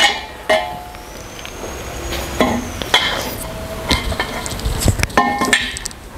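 Hollow metal chair-frame tubes knocking and clinking against each other and the tiled floor as they are fitted together, several knocks ringing briefly.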